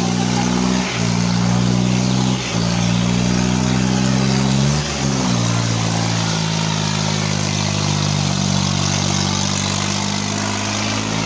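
Modified Swaraj 855 tractor's diesel engine working hard under heavy load as its wheels dig into sand. The steady low drone breaks off briefly about one and two and a half seconds in, dips and shifts pitch about five seconds in, then holds steady.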